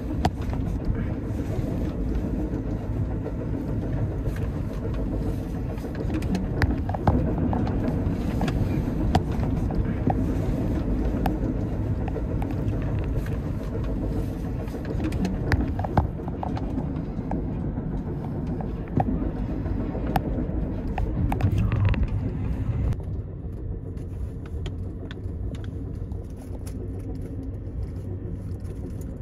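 Steady rolling rumble inside a moving Amtrak Superliner passenger car, with scattered clicks and knocks from the wheels, track and car body. About 23 seconds in, the sound cuts abruptly to a duller, quieter rumble.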